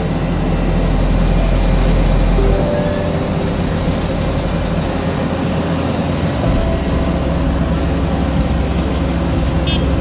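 Vögele Super 1800-3 tracked asphalt paver running steadily while laying asphalt, its diesel engine giving a loud, continuous rumble.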